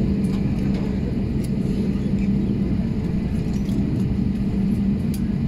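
Cabin noise inside an Airbus A320 taxiing after landing: a steady low rumble with a constant hum, and a few faint clicks.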